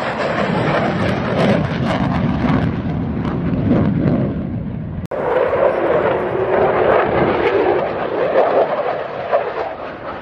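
Fighter jet flying past, its jet engine noise a loud, steady rush. The sound drops out for an instant about halfway through, then carries on.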